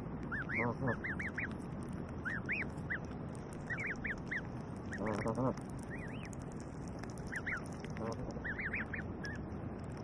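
Canada goose goslings peeping: many short, high chirps that rise and fall, coming in quick clusters. Three lower, longer calls from the geese sound in between, the longest about halfway through.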